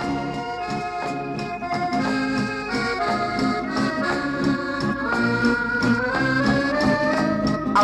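Instrumental introduction to a song: a melody of held, sustained notes over a steady rhythmic accompaniment, with singing beginning at the very end.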